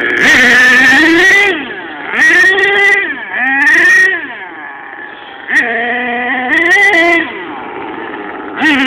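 Radio-controlled car's motor whining up and down in pitch in several short bursts of throttle, easing off briefly between them.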